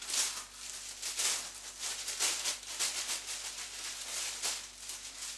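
Thin plastic roasting sleeve crinkling and rustling as it is pulled off its roll and out of a cardboard dispenser box, in a run of irregular crinkles.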